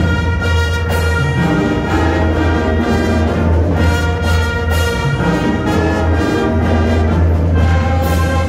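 Marching band playing, brass-led, with held chords that change every second or so over a steady low bass line.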